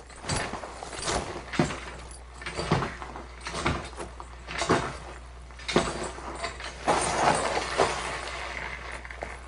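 A series of sharp knocks and thuds, roughly one a second, with a longer scraping noise about seven seconds in.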